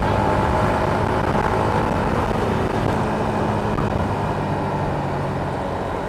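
Yamaha Sniper 150's single-cylinder engine running at cruising speed, with steady wind and road noise, heard through a helmet-mounted action-camera microphone with the visor open. The engine note drops slightly midway as the bike slows.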